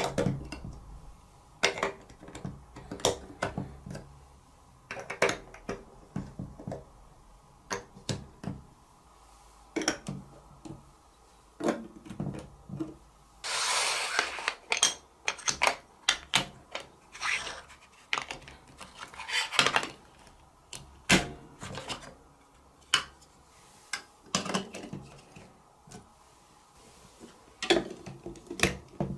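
Chunky plastic toy building bricks being handled and pressed together onto a baseplate: a string of irregular sharp clicks and knocks, with a longer scraping rustle about 14 seconds in.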